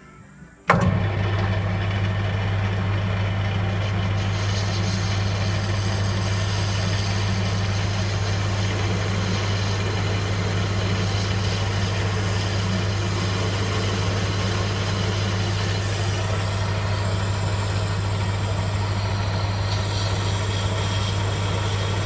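Metal lathe switched on about a second in, its motor then running steadily with a strong low hum while a parting tool cuts into the spinning workpiece to part it off.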